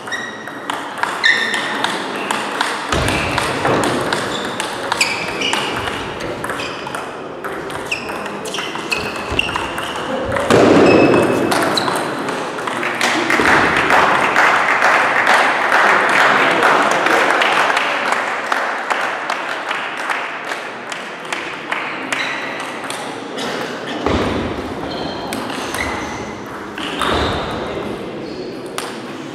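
Table tennis ball being hit back and forth and bouncing on the table, each contact a short sharp ping. About ten seconds in comes a loud burst, then several seconds of even noise, before the pings return near the end.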